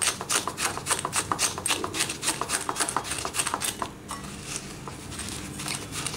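Metal spring-coil whisk beating egg yolks and sugar in a ceramic bowl: rapid clicking of the wire against the bowl, about five strokes a second, easing off and going quieter for a moment about four seconds in before picking up again.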